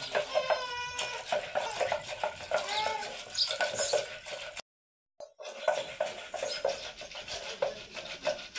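Wooden mathani churning stick twirled by hand in an aluminium pot of curd, knocking and rattling against the pot in quick uneven clicks as the curd is churned into lassi. A high drawn-out cry sounds in the first second and again around three seconds in, and the sound cuts out for about a second just before the middle.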